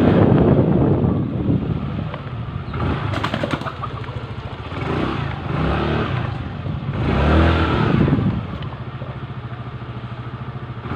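Yamaha Mio MXi 125 scooter's single-cylinder four-stroke engine running after a top overhaul. It settles to a steady run and is blipped up and back down three times, with a short clatter of clicks about three seconds in. The engine runs without the earlier abnormal noise, which the mechanic says is now gone.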